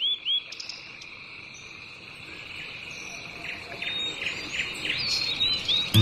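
Nature ambience: a steady high-pitched insect trill with birds chirping. It opens on a quick run of repeated chirps, then scattered chirps and short whistles come in over the trill, growing louder toward the end.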